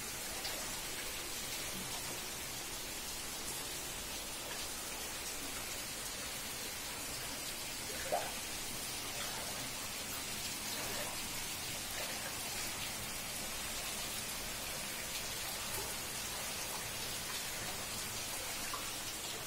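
Heavy monsoon rain falling, heard as a steady, even hiss, with one brief faint tap about eight seconds in.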